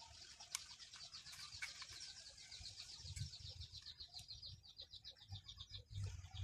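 Faint handling of plastic toy parts with a few light clicks as a figure is put together, under a faint, rapid, high-pitched ticking trill that slows slightly and stops about six seconds in.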